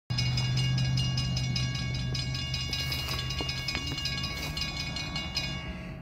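Norfolk Southern freight train passing, led by GE AC44C6M diesel-electric locomotives: a strong low engine drone that weakens after about two and a half seconds, under a steady high metallic whine.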